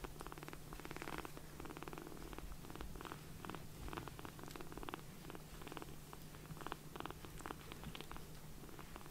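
Young kittens purring contentedly while being stroked, a steady purr that swells and eases in pulses about twice a second.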